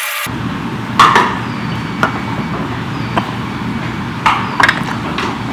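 Busy conveyor-belt sushi restaurant: a steady low hum with scattered sharp clinks and knocks of plates and dishes, loudest about a second in and again around four to five seconds in.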